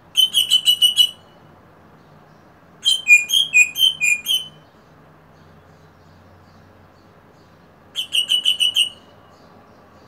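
Eastern rosella calling in three bursts of rapid piping whistles, each about a second long. The first and last are quick strings of repeated notes on one pitch. The middle burst, near the middle of the stretch, is longer and its notes alternate between a higher and a lower pitch.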